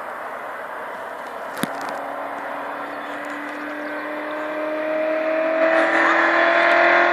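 Rover 3.9 EFI V8 running through a near straight-through exhaust, accelerating: its note climbs slowly in pitch and grows louder over the last few seconds. A single click about a second and a half in.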